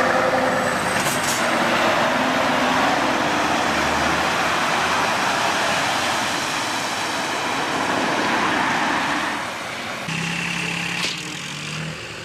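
Road and engine noise heard inside a car through a dashcam, with a brief sharp crack about a second in. About ten seconds in the sound changes to a quieter steady engine hum, broken by a single sharp knock.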